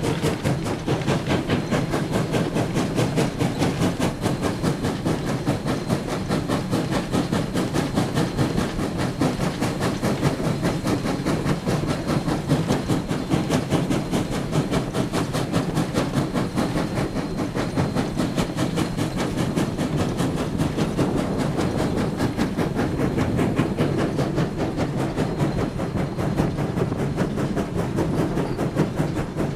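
Sierra Railway No. 3, a 4-6-0 ten-wheeler steam locomotive, working up a grade, heard from the cab: a fast, steady exhaust beat from the stack (stack talk) over the clatter of the running gear and rails.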